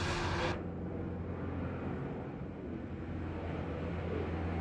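Steady low engine drone, with a loud rushing noise over it that stops abruptly about half a second in.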